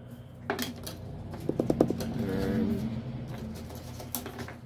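Hands working at a new toaster's lever and its packaging, making scattered small clicks and taps, with a quick run of about five taps a second and a half in.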